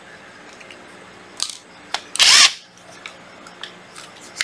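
Cordless power tools handled on a tile floor: light plastic clicks and knocks, and one short loud whirring burst just over two seconds in, over a faint steady hum.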